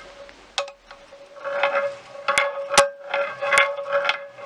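Metal engine parts being handled on the bench: several sharp metallic clinks and some rattling, over a steady ringing tone.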